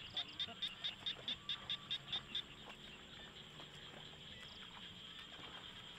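Outdoor animal calls: a quick run of about a dozen high chirps, about five a second, that stops about two and a half seconds in, over a steady high insect-like drone.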